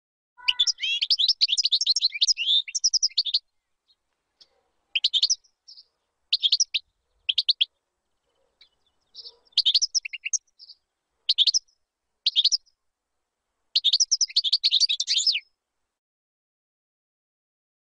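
European goldfinch singing: quick twittering phrases in bursts, a long phrase near the start and another near the end, with short phrases and silent gaps between.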